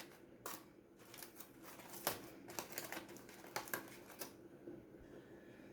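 Aluminium foil crinkling faintly as a hot foil-wrapped oven packet is pulled open, heard as a few separate short crackles.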